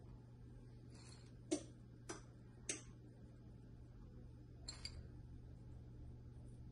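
Light clicks and ticks from sliced almonds being set by hand onto cake batter in a metal springform pan: three sharp clicks about half a second apart, the first the loudest, then a softer double tick a little later, over a steady low hum.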